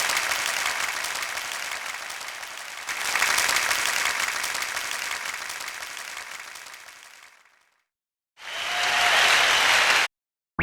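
Crowd applause that swells about three seconds in, then fades away. After a brief silence, a second short burst of applause starts and cuts off abruptly.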